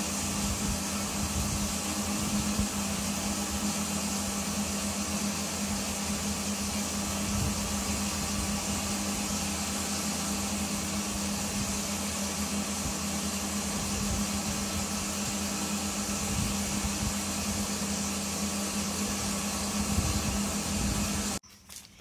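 A motor-driven machine running steadily: a low hum under an even hiss. It cuts off suddenly near the end.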